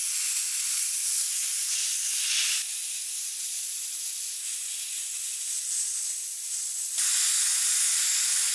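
Abrasive blasting gun hissing steadily as a jet of compressed air and grit hits the aluminium cooling fins of a Vespa two-stroke cylinder head, cleaning it to bare metal. The hiss dips a little about a third of the way in and comes up again near the end.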